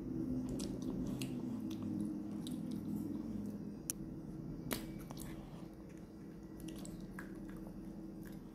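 Plastic capsule from a chocolate surprise egg being handled and pried open: scattered small clicks and snaps, the sharpest about four to five seconds in. A low droning hum runs under the first three seconds.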